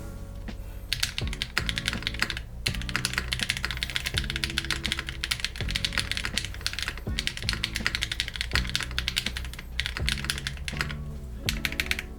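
Fast typing on a mechanical keyboard with a creamy sound: rapid key clicks in runs broken by short pauses, starting about a second in. Background music plays underneath.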